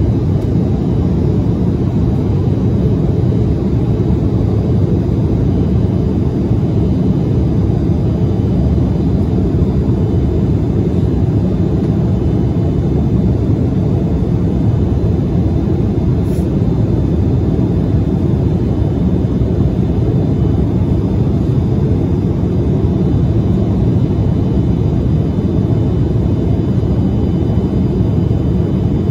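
Steady in-flight cabin noise of an Embraer 175 jet: the low, even rush of airflow and its General Electric CF34 turbofan engines, heard from a window seat over the wing, with faint steady high tones above it.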